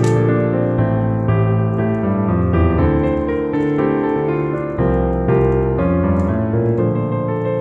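Piano music: a continuous run of notes and chords, several sounding together.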